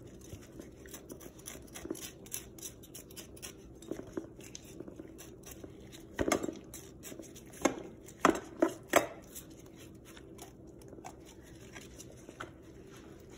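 A knife blade scraping along a whole yellowtail snapper, a run of small scratchy strokes and clicks, with a few louder rasping strokes about halfway through.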